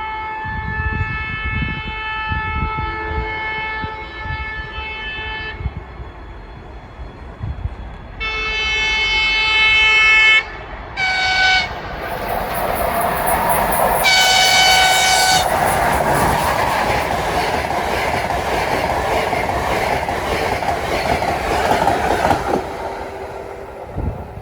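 An EP2K electric locomotive sounds its multi-tone horn four times as it approaches: a long blast, a shorter one, a brief toot, then one more. The locomotive and its passenger train then rush past at speed, with wheel and rail noise swelling for several seconds and then fading.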